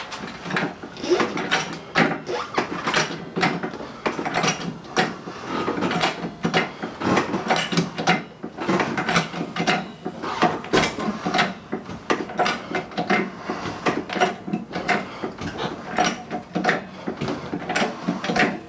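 Small hydraulic jack being pumped by hand to lift a car, a repeated run of mechanical clicks and creaks, one pump stroke after another.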